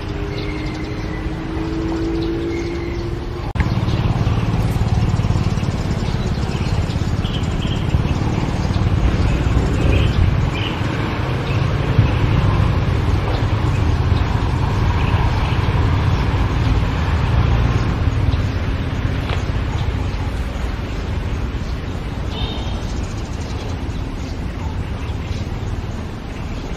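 A steady low rumble that starts abruptly a few seconds in, with a few short, high bird chirps scattered through it.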